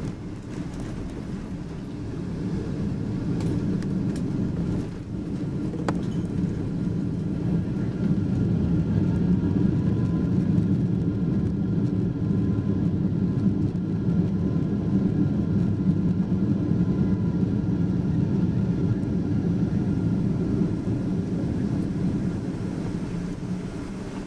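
Boeing 777-200 cabin noise: a steady low rumble from the engines and airflow, with a faint high whine above it. It grows louder about eight seconds in.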